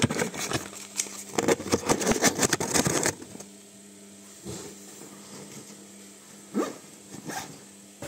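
Samsung front-loading washing machine in its spin cycle: a steady motor-and-drum hum with a dense run of knocks and rattles for about the first three seconds, then a quieter hum with a few single knocks. This is the strange spin noise the owners are complaining of.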